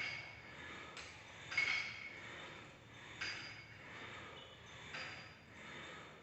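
Cable crossover machine clinking with each rep of kneeling cable chest flies: a short metallic ping from the moving weight stack and cables about every second and a half.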